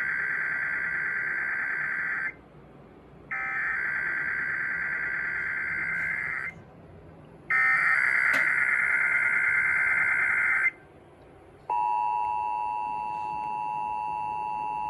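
Emergency Alert System SAME header data bursts: three raspy digital chirping bursts of about three seconds each, a second apart. About a second after the last, the steady two-tone EAS attention signal sounds for about three seconds and cuts off, the start of a Required Weekly Test broadcast.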